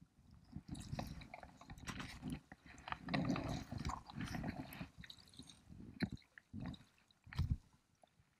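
Irregular rustling, scuffing and crackling of jacket fabric rubbing on a chest-mounted camera as the wearer leans over the water, with a few dull bumps and soft splashing from hands holding a walleye in the river.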